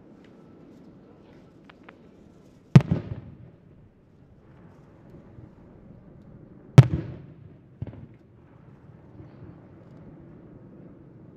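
Aerial firework shells bursting twice, about four seconds apart. Each burst is a sharp boom followed by a rolling echo that dies away, and a smaller pop follows about a second after the second boom.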